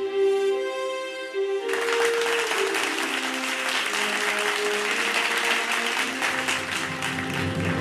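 Music with long held notes, then audience applause breaks out about two seconds in and carries on over the music.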